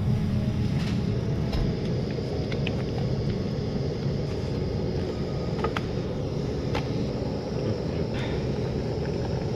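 Motorcycle riding noise: a steady low rumble with a few sharp ticks scattered through it.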